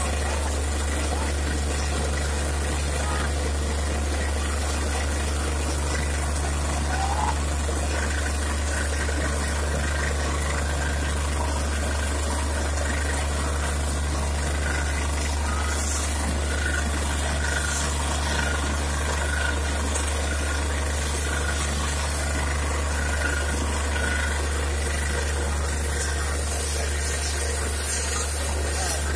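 Borewell drilling rig running with a steady low engine drone while water gushes up out of the freshly struck bore.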